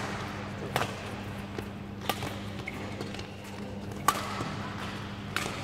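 Badminton rackets striking a shuttlecock during a rally: four sharp hits about a second and a half apart, echoing in a large hall, over a steady low hum.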